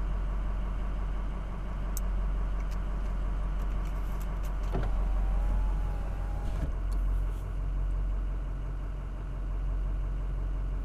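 Pickup truck engine idling steadily, heard from inside the cab as a low hum. A few light clicks come about two seconds in, and a faint short wavering tone sounds for about two seconds near the middle.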